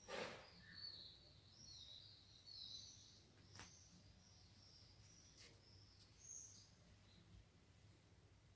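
Faint chirping of small birds, a string of high wavering chirps through the first half, with a few soft clicks; otherwise near silence.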